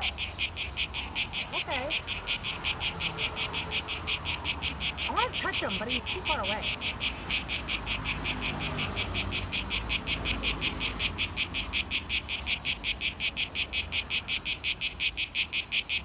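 Cicada singing close up on a pine trunk: a loud, high-pitched buzz pulsing evenly at about five pulses a second without a break. It is the male's call, made with its tymbals.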